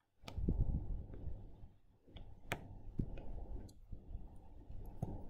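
Scattered light clicks and taps, about six over a few seconds, over a low rumbling background noise.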